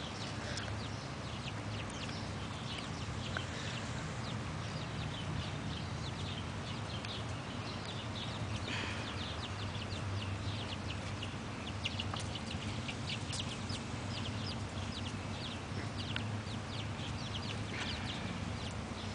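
Silkie chickens clucking, with many short, high chirps and calls scattered through, over a steady low hum.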